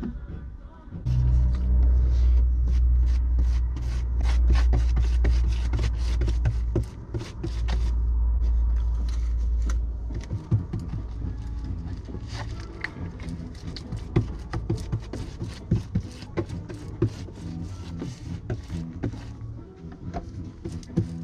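A stiff paint brush scraping and dabbing thick wheel bearing grease onto a car's painted steel floor pan, in many quick short strokes. A loud low rumble runs under the strokes until about ten seconds in, then stops.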